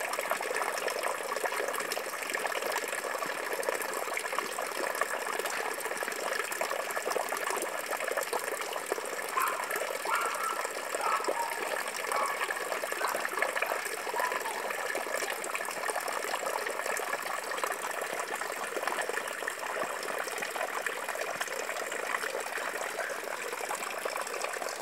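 Steady splashing and bubbling of water churning out of a pipe submerged in a tarpaulin-lined fish tank.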